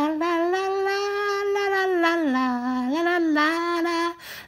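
A high voice singing long wordless notes that slide up and down in pitch, a comic 'singing teddy bear' voice, with a brief break about four seconds in.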